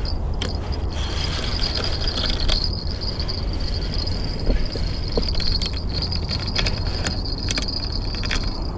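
Spinning reel being wound in on a hooked fish: a steady whir from the reel, with a run of sharp clicks in the second half, over a low rumble of wind on the microphone.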